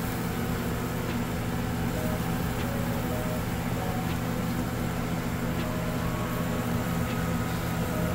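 Steady low machine hum with an even hiss over it, holding level throughout.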